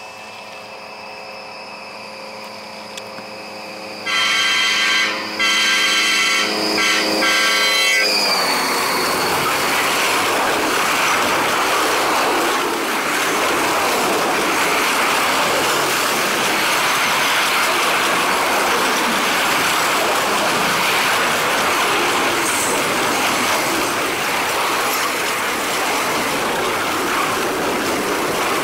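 A diesel freight locomotive's horn, faint at first, then loud in several blasts from about four seconds in, its pitch dropping as the locomotive passes at about eight seconds. Then the steady rushing noise of a fast double-stack container train's cars and wheels going by, which sounds like a jet aircraft.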